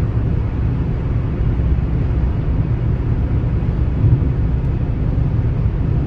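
Road and engine noise inside a car's cabin at highway speed: a steady low rumble.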